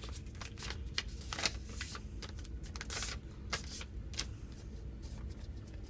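A sheet of computer paper being folded and creased by hand: a run of quick, crackling paper rustles.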